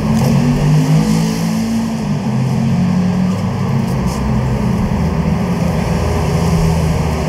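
A motor-vehicle engine running steadily at a low, even pitch.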